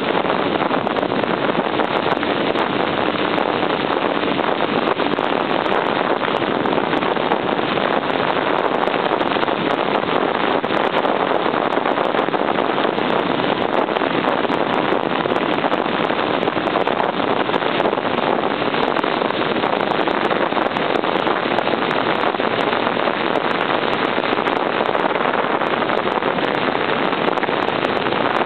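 Steady wind rush over the microphone of a moving 1978 Honda CB750 motorcycle, with its air-cooled inline-four engine running underneath at a steady cruise.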